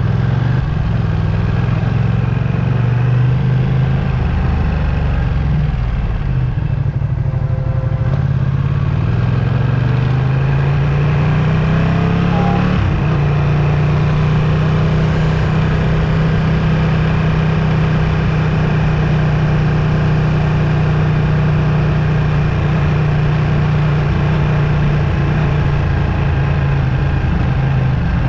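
Ducati Streetfighter V2's 955 cc L-twin engine running under way, its note sagging about six seconds in, rising steadily from about ten seconds, then holding an even, slightly higher pitch.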